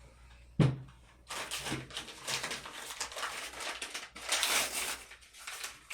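A single knock as something is set down, then a few seconds of crackly rustling from packaging being handled while the chainsaw is unwrapped.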